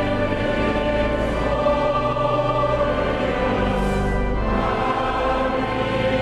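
Choral music: a choir singing slow, long-held chords that change a few times.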